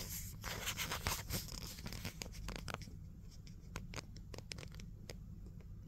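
Rustling and crackling: a dense patch of crinkly clicks for about the first three seconds, then scattered single clicks.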